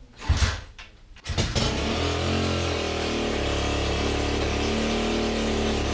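Kick-starting a pit bike's 140cc Lifan four-stroke single with the choke on: a sudden kick near the start, then the engine catches about a second in and settles into steady running on choke, loud because the exhaust is not going into the exhaust tip.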